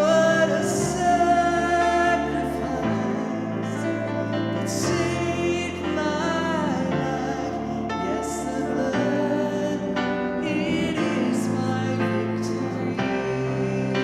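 Gospel worship song: voices singing over sustained instrumental chords, with the bass note changing every second or two.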